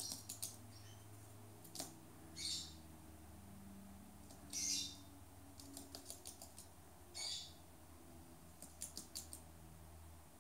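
Rainbow lorikeet giving four short harsh calls, about two seconds apart, while its claws tick on the wooden floor in quick little runs as it walks.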